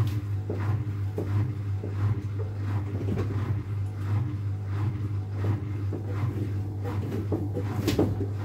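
AEG 8000 Series Lavamat front-loading washing machine running a wash, its drum turning: a steady low motor hum under a train of soft knocks and swishes, one or two a second, from the laundry tumbling.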